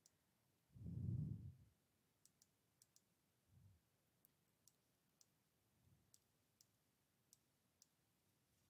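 Faint, irregular computer mouse clicks, about a dozen, over near silence, with a soft low sound lasting under a second about a second in.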